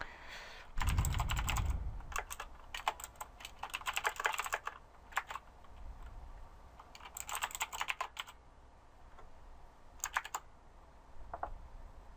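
Typing on a computer keyboard in several short bursts of key clicks with pauses between them.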